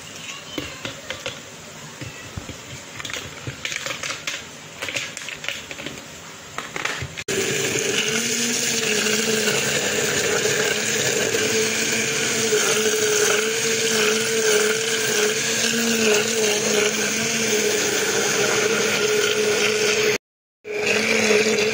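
Ice cubes clicking and clattering as they are twisted out of a plastic tray and dropped into a glass jug. About seven seconds in, a hand-held immersion blender starts abruptly and runs steadily with a humming tone, blending mango pieces, ice and soda water; the sound drops out for a moment near the end and the blender resumes.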